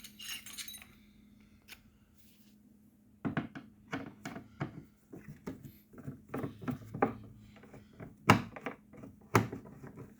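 Screwdriver and small metal screws clicking and tapping as the back-cover screws of a small portable speaker are taken out: a brief metallic jingle at the start, then irregular clicks and knocks from about three seconds in, the two sharpest near the end, over a faint steady hum.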